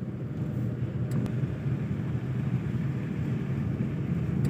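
Steady low rumble of a car moving slowly on a wet road, engine and tyre noise heard from inside the cabin, with a couple of faint ticks about a second in.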